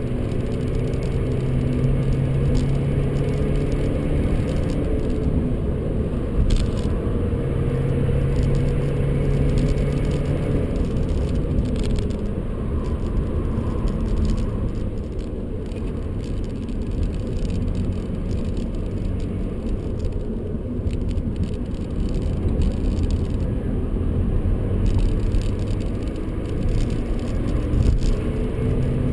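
Inside the cabin of a BMW 125d at speed: its four-cylinder turbo-diesel engine runs under a steady road and tyre roar. The engine note holds and shifts as the car runs at about 120 km/h, then slows under braking near the end.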